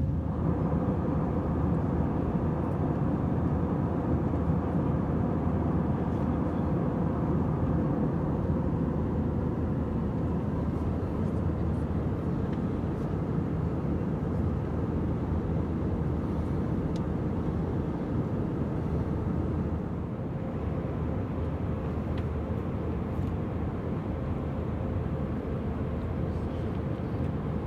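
Airbus A320-200 cabin noise: a steady low rumble of engines and airflow heard from inside the passenger cabin, with a faint steady hum. It eases slightly about two-thirds of the way through.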